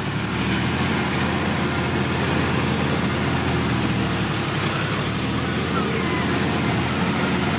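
Sonalika DI-50 RX tractor's diesel engine running steadily as the tractor drives along, heard close up from the driver's seat.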